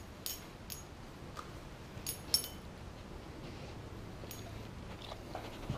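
Short metallic clinks of a dog's collar tags, several light jingles at irregular intervals as the dog moves about, over quiet room tone.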